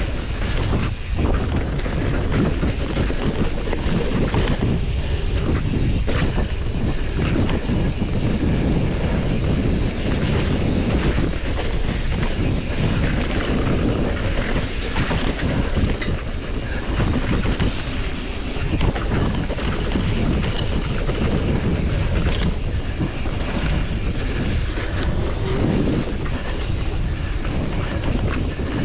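Steel hardtail mountain bike riding fast over a dirt singletrack: a continuous rumble of tyres on the trail with a dense clatter of small knocks and rattles from the bike over bumps, and wind rushing over the microphone.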